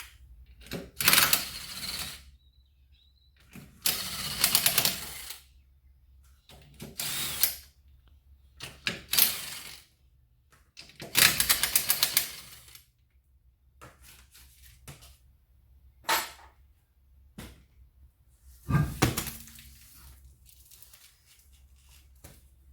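A power tool spinning off the rear wheel nuts in five short bursts, one nut after another. Later come shorter knocks and a thud near the end as the wheel is taken off.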